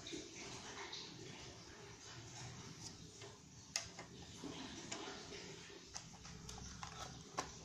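Plastic model-kit parts being handled in a cardboard box: soft rustling with irregular sharp clicks of hard plastic, several of them in the second half.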